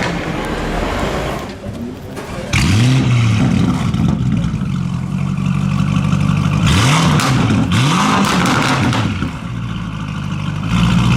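Lamborghini Urus's twin-turbo V8 through a straight-piped Novitec Race exhaust, idling and being revved: one rev about two and a half seconds in, then two quick blips around seven and eight seconds, each rising and falling straight back to idle, with crackles as the revs drop.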